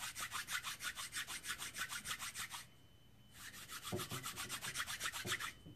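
Rapid, rhythmic rubbing strokes, about seven a second, as a juice-soaked cotton-wicked coil head is rolled hard in the palm to press the cotton over its juice holes. The strokes stop for under a second about halfway through, then start again.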